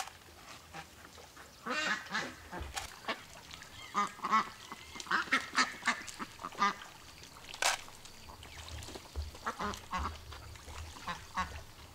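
Ducks quacking, short calls coming in runs with brief pauses between them.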